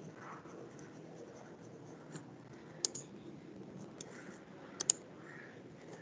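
A few faint, sharp clicks at a computer, spaced irregularly, one of them a quick double, over a steady low hiss from the microphone.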